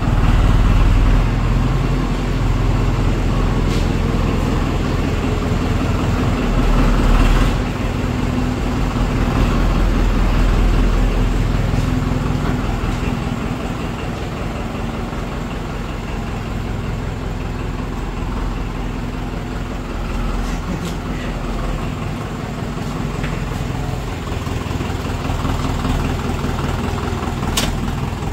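Farmtrac 6055 tractor's diesel engine running at low speed while the tractor is driven out. It is louder over the first several seconds, then settles to a steadier, slightly quieter run, with one sharp click near the end.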